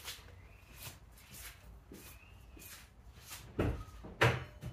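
Footsteps on a hard floor, a step about every half second, then two louder thumps near the end.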